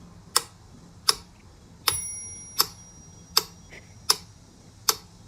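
Steady clock-like ticking, seven sharp ticks evenly spaced about three-quarters of a second apart, with a single bright bell ding about two seconds in that rings for about a second.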